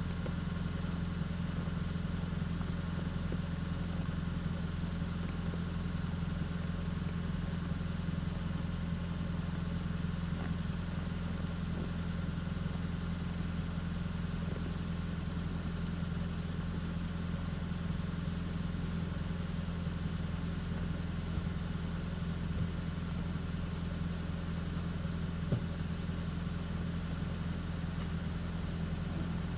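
A motor running steadily at constant speed: an even low hum, with one faint click late on.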